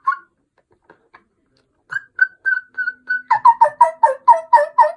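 Latex mouth diaphragm turkey call blown in yelps. After a pause, a run of clear, high single notes starts about two seconds in, then from about three seconds in louder two-note yelps, about four a second, each breaking from high to low.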